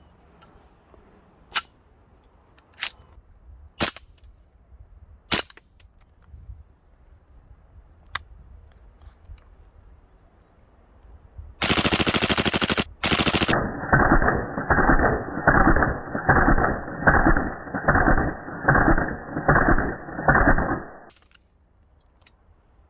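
CO2 airsoft Desert Eagle replica firing: a few single shots spaced a second or more apart, then a rapid full-auto burst lasting over a second. Then comes a duller, muffled run of about a dozen evenly spaced pulses, roughly two a second, that stops sharply.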